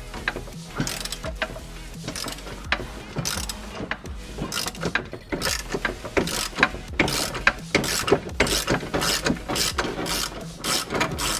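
Hand ratchet wrench clicking as it backs an 18 mm nut off the rear trailing-arm bracket bolt of a BMW E46. The clicks are sparse at first, then come in quick runs of strokes from about four seconds in.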